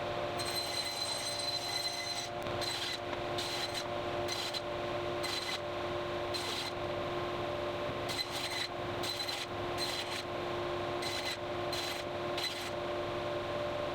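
Repeated rasping, rubbing strokes on wood, coming in short bursts, over a steady hum.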